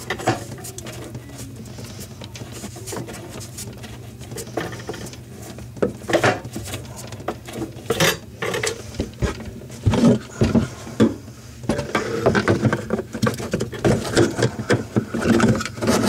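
Hands and a hand tool working on the supply-line fittings under a bathroom sink make scattered clicks, knocks and light metallic rattles, sparse at first and busier in the second half.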